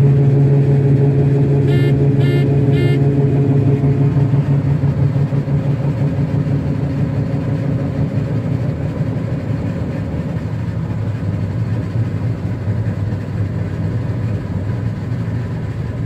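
John Deere 9660 STS combine's engine and unloading auger running, heard from inside the cab: a steady drone that softens and drops a little in level after about four seconds as the grain stream runs out. Three short beeps sound about two seconds in.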